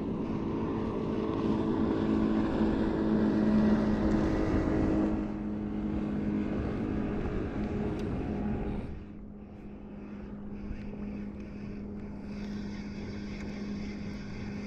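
Motorboat engine running steadily with a low hum, louder for about the first nine seconds and then dropping off.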